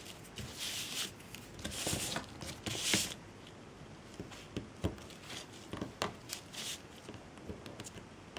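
Hands handling jute twine and small crafting materials: three short rustling swishes in the first three seconds, then scattered light clicks and taps.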